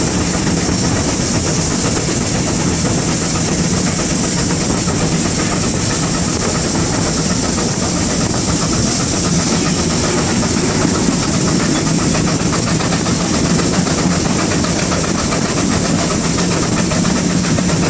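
GWR 5600 class 0-6-2 tank locomotive No. 6619 running along the line, heard from its footplate: a loud, steady mix of wheels on rails and the rumble of the moving engine, with a constant hiss of steam over it.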